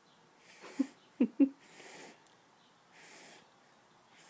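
A sleeping baby snoring: wheezy breaths about once a second, with three short, louder noises close together about a second in.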